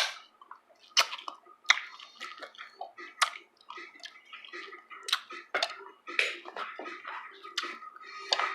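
A person eating, with wet mouth sounds and irregular sharp clicks, one or two a second.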